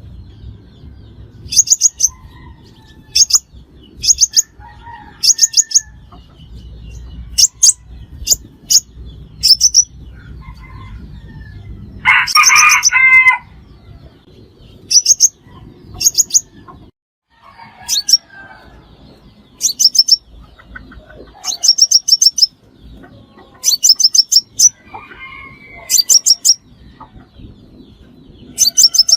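Sunbird calling: short bursts of two to five very high, rapid chirps, repeated every second or two, as in a decoy recording played to lure sunbirds to a trap. About twelve seconds in, a longer, lower call lasting over a second stands out among them.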